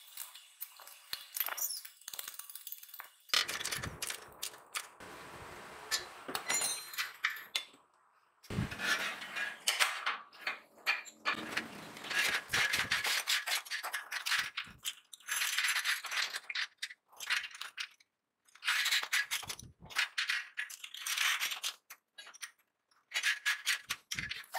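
Steel parts and tools clinking and clanging as metal is handled and worked, in short bursts of knocks and rattles that stop abruptly, with a stretch of steady hissing noise a few seconds in.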